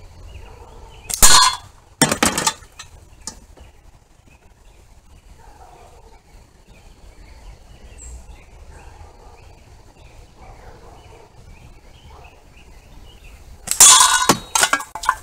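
Slingshot shots hitting small tin cans on a target stand. A sharp metallic clang about a second in is followed by the can clattering down. After a quiet stretch, another loud clanging hit near the end knocks a can flying, with a brief rattle after it.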